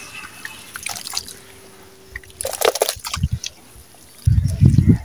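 Hands squelching and squeezing wet sand and cement mud in a puddle of muddy water, with crackling, dripping and splashing. There is a louder wet squelch about two and a half seconds in, and a low rumble near the end.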